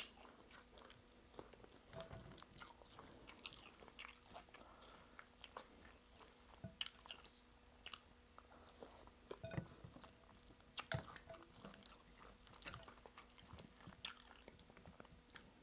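Faint, close-up mouth sounds of a person chewing and biting food, most likely stockfish with egusi soup: irregular wet clicks and crunches with no rhythm. A single sharp click sounds right at the start.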